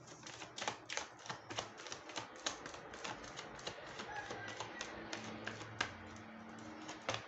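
Tarot cards being handled and laid down: irregular light clicks and taps, a few a second, over faint background music.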